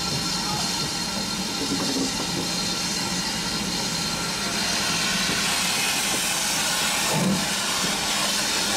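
BR Standard Class 4 steam locomotive hissing steadily. The hiss grows louder in the second half as steam blows from the cylinder drain cocks.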